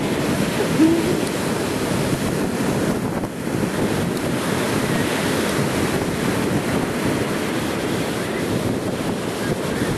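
Ocean surf washing steadily, with wind buffeting the camcorder microphone into a constant low rush. A brief pitched sound stands out about a second in.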